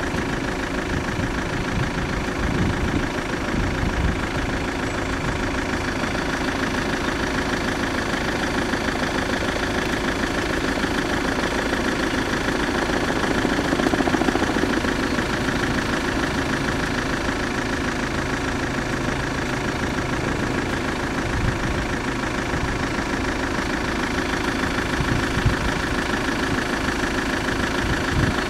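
Railway level-crossing warning bell ringing steadily and rapidly while the barriers are down, signalling an approaching train. The sound swells briefly about halfway through.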